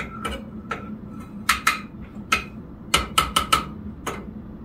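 Slotted spatula knocking and scraping against a small single-egg skillet while stirring butter to help it melt: about a dozen irregular clinks, each with a short ring from the pan.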